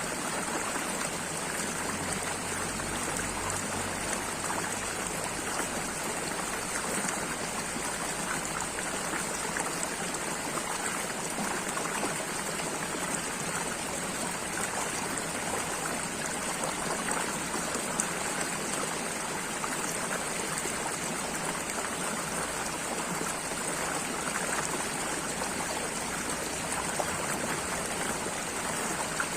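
Water running steadily, with no change.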